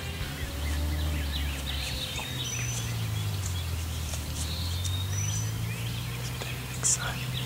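Birds chirping and whistling all around in a dawn chorus, over a low steady hum, with one sharp click near the end.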